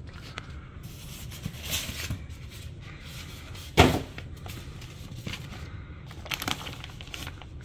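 A polystyrene foam shipping box being opened by hand: the lid is worked off, with one loud knock or scrape a little under four seconds in. Light rustling of the water-filled plastic coral bags inside follows as a hand moves over them near the end.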